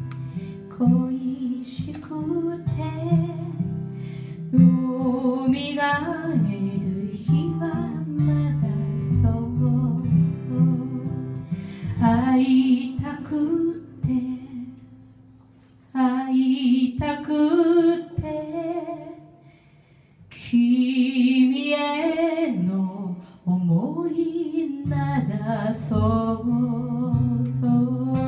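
A woman sings a slow song into a microphone, her held notes wavering with vibrato, over acoustic guitar accompaniment. The music drops to a brief hush twice, about halfway through.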